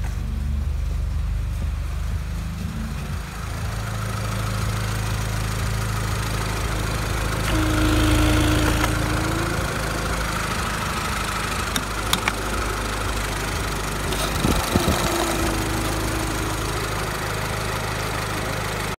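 Opel Signum's 2.2-litre Z22YH four-cylinder petrol engine idling steadily, with a few sharp clicks about two-thirds of the way through.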